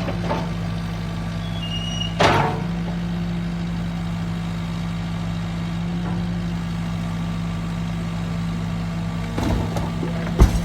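Vehicle engine idling with a steady low drone. There is one sharp knock about two seconds in and a few clunks near the end.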